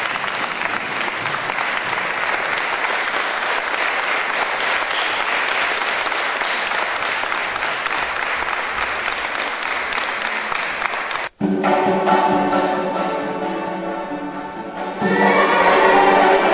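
Audience applauding for about eleven seconds. After an abrupt cut, an Armenian folk-instrument ensemble of kanons, flutes and ouds starts playing held notes, louder from about fifteen seconds in.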